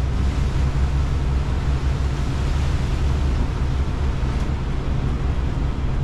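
Steady rush of strong wind and heavy seas around a sailing catamaran under way in a near-gale, over a deep low rumble.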